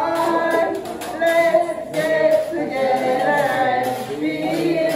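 Music: a song with a sung melody of held, wavering notes over a steady beat.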